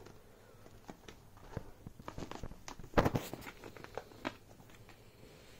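Beagle puppy pawing and nosing at a mesh fabric bag: scratchy rustling of the fabric with scattered clicks, loudest about three seconds in.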